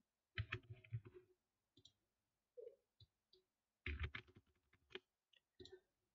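Faint computer keyboard typing and mouse clicks in two short clusters, the first about half a second in and the second about four seconds in, with a few single clicks between.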